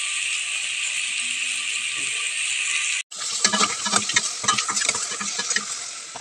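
Sliced mushrooms sizzling in butter in a stainless-steel pot, a steady hiss. After a brief break about three seconds in, a utensil stirs them, clicking and scraping against the pot over the sizzle.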